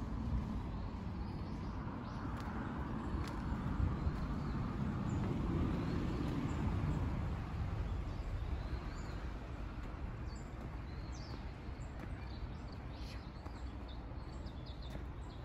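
Small birds chirping now and then among trees, more often in the second half, over a steady low rumble.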